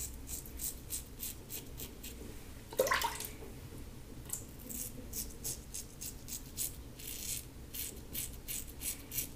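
LASSCo BBS-1 stainless steel safety razor with a Gillette Silver Blue blade cutting through lathered stubble: quiet, rapid scratchy rasps of short strokes, coming in several runs.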